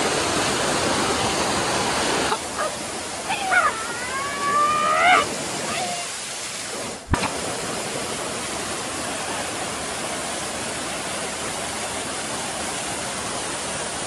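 Steady rush of water from a small waterfall swollen by monsoon rain. A voice calls out a few times in drawn-out rising cries about three to six seconds in.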